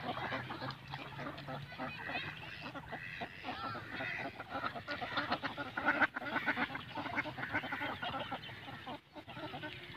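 A flock of domestic ducks quacking, many short calls overlapping without a break, easing briefly about nine seconds in.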